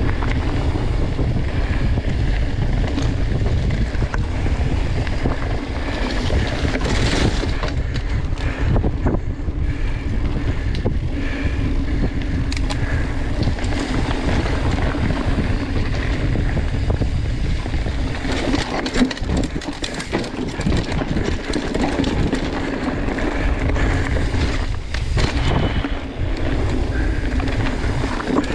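Wind buffeting the microphone of a camera on a mountain bike riding a dirt trail, with tyre rumble and the bike rattling and knocking over roots and bumps.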